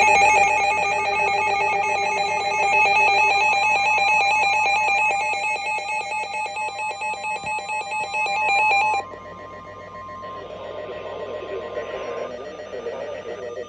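Emergency alert tones: a loud, rapidly pulsing electronic alarm of several steady pitches for about nine seconds, which cuts off suddenly. A faint steady single tone follows over background hiss.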